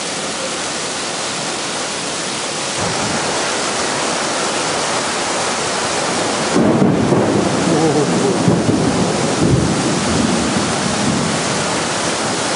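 Heavy rain pouring down steadily, with a long rumble of thunder starting about six and a half seconds in.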